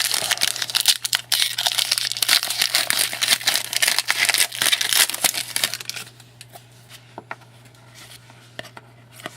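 Hockey trading card packs being torn open, their wrappers crinkling and crackling for about six seconds, then quieter with a few light clicks as the cards are handled.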